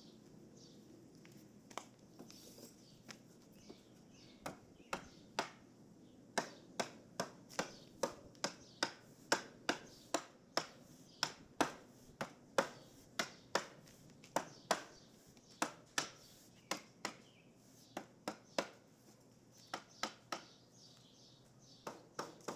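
A run of sharp, light clicks from hand work. They are scattered at first, then come steadily at about two a second for some ten seconds before thinning out again.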